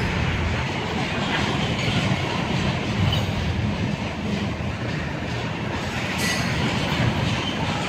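Double-stack intermodal well cars of a Norfolk Southern freight train rolling past, a steady rumble of steel wheels on the rails.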